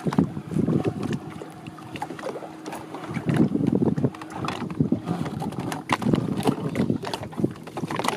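Water slapping and splashing against the hull of a small open wooden boat in irregular surges, with wind buffeting the microphone. Brief knocks are scattered through it.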